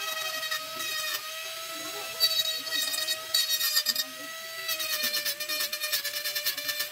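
Electric rotary carving tool running with a steady high whine, its bit grinding into wood in rattling spells about two seconds in, again a little later, and through the last two seconds.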